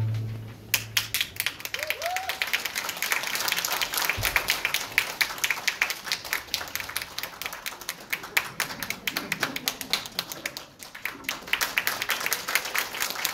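Audience applauding, starting about a second in as the ensemble's final chord dies away.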